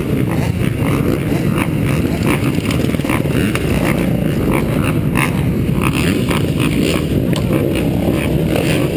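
Motocross bike engines running, heard through a helmet camera's microphone as a steady rumbling noise.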